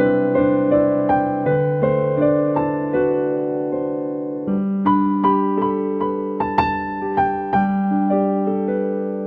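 Solo piano music at a slow pace: single melody notes struck over long-held bass notes, each note fading after it is struck.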